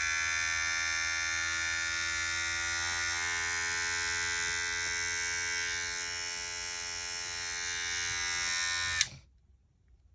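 Wahl Magic Clip cordless hair clipper running with its newly fitted 7200 RPM, 3.6 V replacement motor: a steady, even buzz that is switched off about nine seconds in and stops abruptly.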